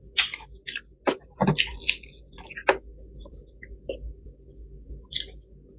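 Close-up eating noises: irregular crackling and squishing as crisp fried chicken is pulled apart by hand in a plastic takeout container.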